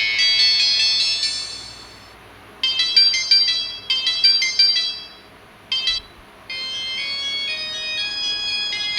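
Samsung GT-E1150 mobile phone playing its ringtones through its small speaker, thin and high-pitched. One melody fades out about two seconds in, then a tune of quick repeated notes, a short blip, and from about six and a half seconds a new melody of held notes.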